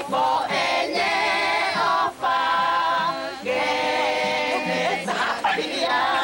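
Group of children singing together unaccompanied, in held notes with short pauses between phrases about every second or so.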